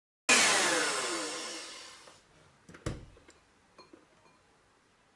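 Electric hand mixer's motor whirring and falling in pitch as it winds down, fading away over about two seconds. A single sharp knock follows about halfway through, then a few faint clicks.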